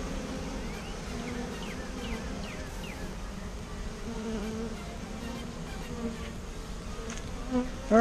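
A freshly captured honeybee swarm buzzing around an open hive box as its queen is let in: a steady hum of many bees whose pitch wavers.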